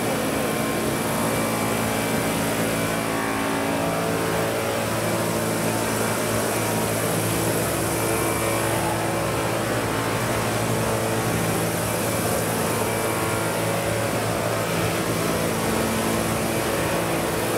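Large radio-controlled Vario CH-47 Chinook scale model helicopter in flight: its tandem rotors and drive give a steady, many-toned drone that holds nearly the same pitch throughout.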